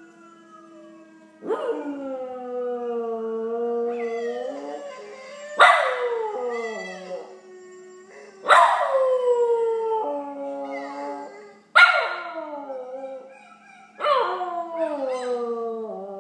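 A West Highland terrier mix howls along with a video of a howling dog playing through a laptop's speakers. There are about five long howls, each starting suddenly and sliding down in pitch.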